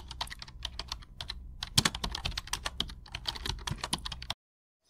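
Rapid, irregular keystrokes of typing on a computer keyboard, cutting off suddenly a little after four seconds in.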